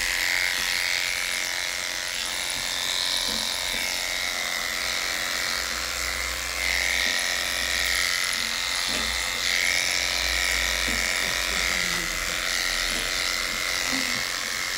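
Electric dog grooming clippers running continuously as the blade works through matted, wet coat, a steady high-pitched buzz whose pitch wavers slightly.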